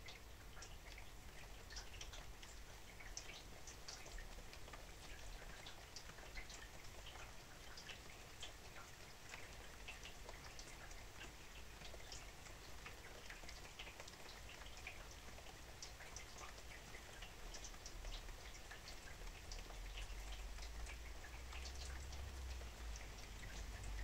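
Light rain: scattered raindrops ticking irregularly and faintly, with a low rumble that grows louder near the end.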